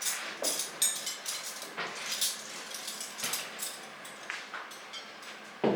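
Kitchen clatter: dishes and cutlery being handled, a run of irregular clinks and knocks, with a louder knock near the end.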